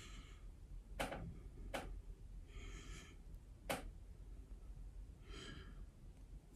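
Quiet close-up handling sounds while glaze is poured: three sharp clicks, about a second in, near two seconds and near four seconds, and two short breaths through the nose, around three seconds and five and a half seconds in.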